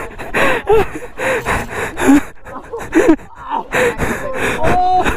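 A man gasping and breathing hard, with short groaning vocal sounds between breaths, after a motorcycle crash in which he hurt his hand.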